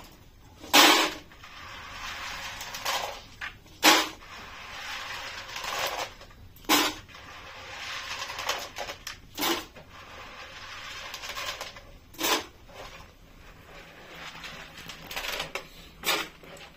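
Soaked grains being rubbed and swished by hand in a plastic bowl of water, a steady wet rustling. About six loud, sharp cracks sound over it, roughly every three seconds.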